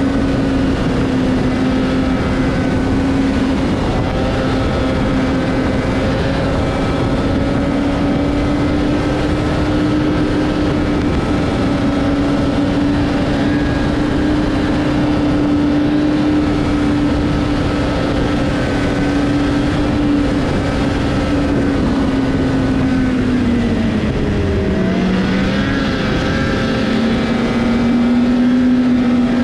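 Snowmobile engine running steadily at trail speed. Near the end it eases off, dropping in pitch for a moment, then picks up again.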